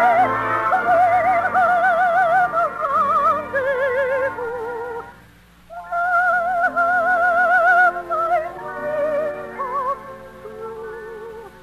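Operetta music with orchestra: a high melody held with wide vibrato, stepping down in short phrases, that drops away briefly about five seconds in and then returns.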